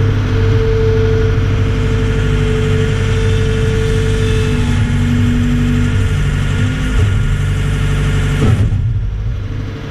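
Skid steer engine running steadily, with a steady whine over the engine hum. About eight and a half seconds in there is a short knock, and the sound drops off slightly near the end.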